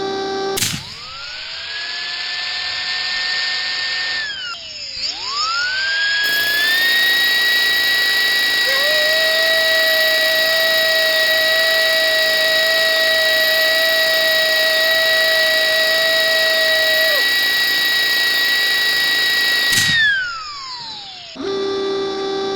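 A dental drill whines up to a high steady pitch for a few seconds and winds down. It spins up again and runs for about fifteen seconds, with a lower second whine joining midway, then glides down at the end.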